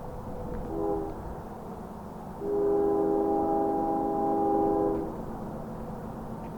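Freight locomotive air horn sounding a short blast, then a long one of about two and a half seconds: several steady notes held together as a chord.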